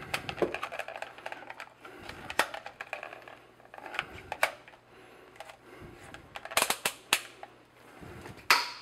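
Scattered plastic clicks and rattles of a handheld voltage test meter and its test leads being handled and readied, with a quick cluster of clicks near the end.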